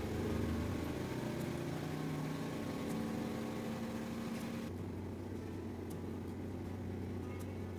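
A steady low machine hum, like a running motor, with a few faint clicks; the hiss above it drops off abruptly about two-thirds of the way through.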